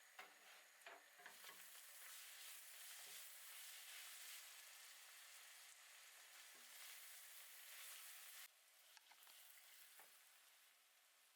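Food sizzling in a frying pan: a soft, steady hiss that cuts off suddenly near the end, with a few utensil knocks as it starts and light clicks after it stops.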